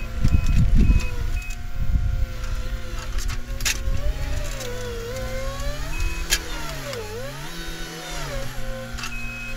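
Caterpillar 259D3 compact track loader's diesel engine running under load, its pitch sagging twice as it is pulled down working stumps and then recovering. Short high beeps repeat about twice a second in the first second and a half, with heavy low thumps and a few sharp clanks.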